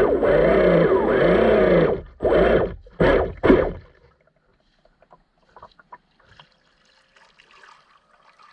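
Twin brushless electric motors of a Minicat 820 EP RC catamaran running with water rushing past the hull for about two seconds, its pitch wavering. Then two short throttle bursts, then the drive cuts and only faint water sounds remain.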